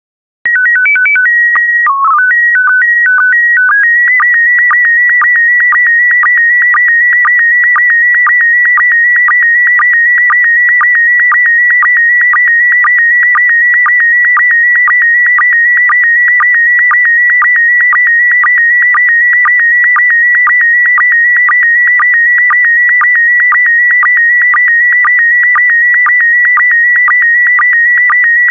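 Slow-scan television (SSTV) transmission in PD120 mode. A single electronic tone first hops between a few fixed pitches and dips low for the opening header, then from about four seconds in becomes the image scan: a warbling tone near the upper middle of its range, broken by a short low sync blip about twice a second.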